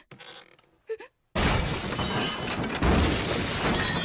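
Anime blast sound effect: after a faint moment, a sudden loud crash sets in about a second and a half in and runs on as a dense, noisy rush, as a character is struck and thrown down a corridor.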